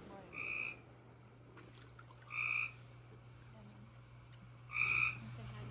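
A frog calling three times, about two seconds apart, each call short and held on one pitch.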